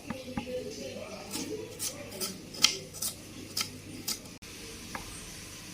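A run of sharp clicks and taps from kitchen utensils, about two a second, the loudest about two and a half seconds in, stopping a little after four seconds.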